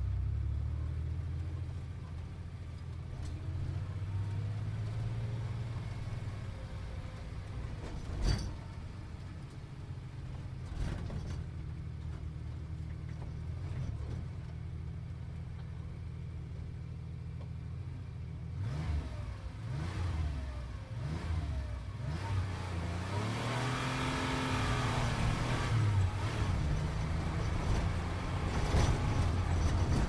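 Sports car engine running while driving, a steady low drone with one sharp knock about eight seconds in. From about nineteen seconds the revs climb and drop several times, and road and wind hiss builds toward the end.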